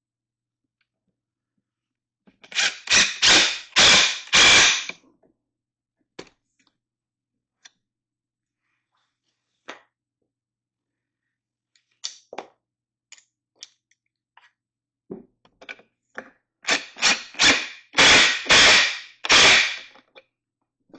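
Cordless impact driver hammering in several short bursts as it drives screws that fasten a barstool leg to its seat frame, until they are tight. One cluster of bursts comes about two and a half seconds in and another near the end, with light handling clicks between.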